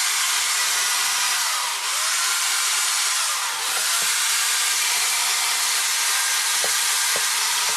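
Chainsaw running steadily as it cuts into wood, rounding off a carved nose, with two brief dips in its sound.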